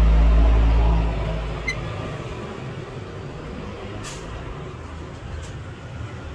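Low engine rumble of a motor vehicle, fading out about a second in, then steady traffic noise.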